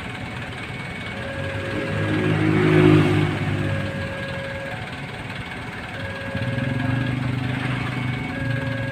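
Engines of vehicles queued at a closed level crossing idling, one revving up loudest about three seconds in and another rising again near the end. A repeating electronic warning tone of short steady beeps at two alternating pitches sounds throughout.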